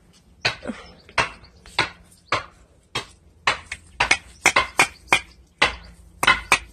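A hammer striking the head of a 3/8-inch earth rod over and over, driving it into the ground. The blows come about twice a second at first and quicken to about three a second in the second half.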